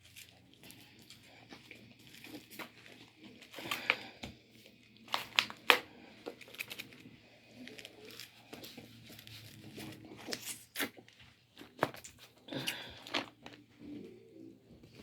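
Eating fried chicken: irregular crunching and crackling of crispy breading being torn and bitten, with crinkling of the paper wrapping.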